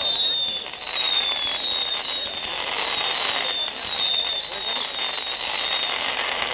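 Whistling fireworks being launched one after another, a string of overlapping high whistles, each falling in pitch, about one a second. A sharp crack from a burst comes near the end.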